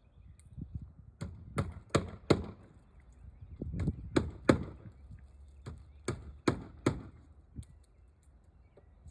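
Hammer striking, about a dozen sharp blows in groups of three or four, as in nailing down roofing shingles.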